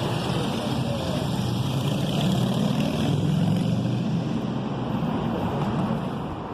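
Steady low engine rumble under a haze of wind-like noise.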